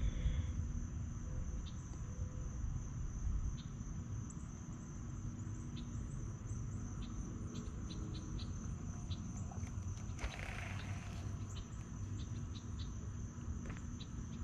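Steady high-pitched drone of summer insects, over a low rumble, with scattered light ticks and a brief rush of noise about ten seconds in.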